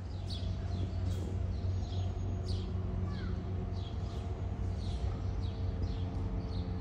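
A bird chirping over and over in short falling chirps, about two a second, over a steady low hum.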